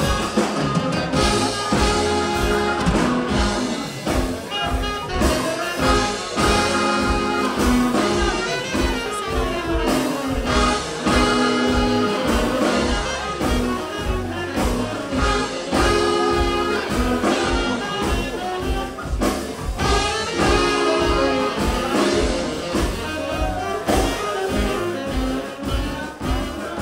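Small jazz band playing live: saxophones and trumpet carry the lines over a steady beat in the bass.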